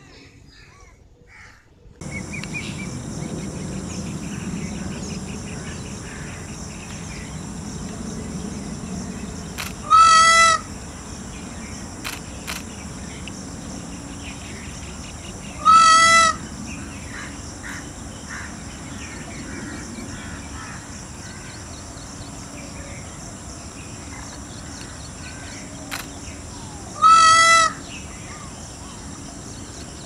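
Three loud peacock calls, each under a second, about six and eleven seconds apart, over a steady high-pitched hiss of forest background.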